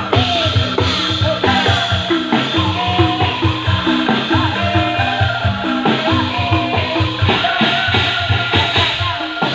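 Music with a drum kit keeping a steady beat over a bass line, and a lead melody that slides between notes.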